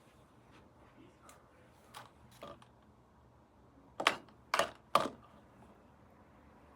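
Sharp clicks from parts of a metal-frame bookshelf being handled during assembly: a few faint clicks, then three loud ones about half a second apart.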